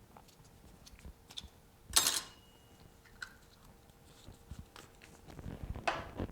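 Small clicks and taps from repair tools and phone parts being handled on a work surface, with one sharp clack about two seconds in and a busier patch of knocks and rustling near the end.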